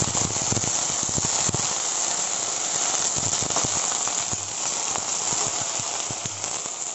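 Chopped okra, onion, garlic and green chilli sizzling in hot oil in a kadhai, with sharp clicks and scrapes of a metal spatula against the pan as they are stirred. The sizzle eases a little toward the end.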